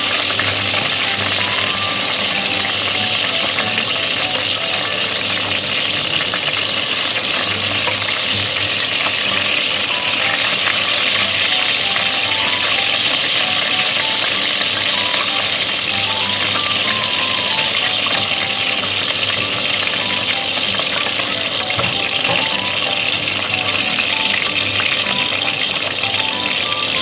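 Chicken frying in hot oil in a pan, a steady sizzle, with light background music playing a simple melody over it.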